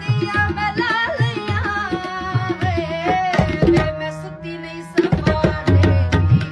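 Background music with tabla drumming under a melodic line. The drumming stops briefly near the middle and comes back in more strongly.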